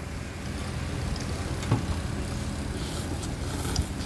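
Steady low rumble of motor-vehicle engines from the street, with a couple of light clicks.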